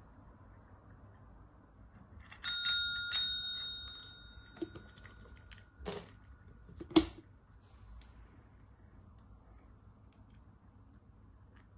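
Desk call bell tapped twice in quick succession, each strike a bright ding that rings on and slowly fades. It is followed by a few short knocks, the sharpest about seven seconds in.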